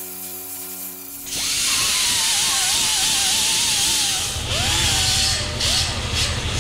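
Small air-powered grinder starting up about a second and a half in and running on the steel of a cowl patch: a loud air hiss with a whining pitch that wavers and sags as the wheel bears on the metal. Near the end it is blipped on and off a few times.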